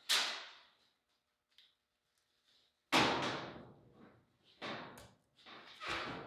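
A cordless drill run in short bursts at the sheet-metal body panels, with sharp knocks from the metal. There are five bursts; the loudest is about three seconds in, after a near-silent gap.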